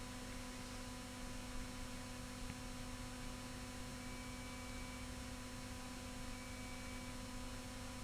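Steady electrical mains hum, a low buzz with a few fixed tones over faint hiss. A faint high beep sounds for about a second, twice, about four and six seconds in.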